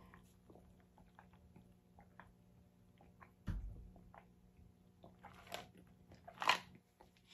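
Faint swallowing and mouth sounds of someone drinking from a plastic cup, with scattered small clicks. There is a low bump about three and a half seconds in, and two sharper sounds near the end, the second the loudest.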